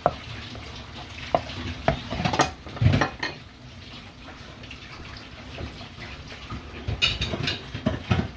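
A spoon stirring tomato, onion and spice masala in a cooking pan, knocking and scraping against the pan several times, with a faint sizzle underneath.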